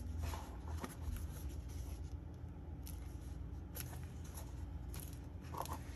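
Hands handling stiff cardstock and chipboard craft pieces: faint paper rustling with a few light taps, over a low steady hum.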